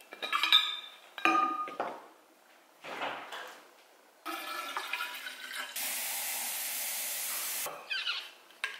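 A metal water bottle is handled with a few ringing clinks, then a kitchen faucet runs steadily into the sink for about three seconds and shuts off.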